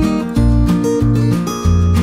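Background music: a strummed acoustic guitar tune over a steady bass line.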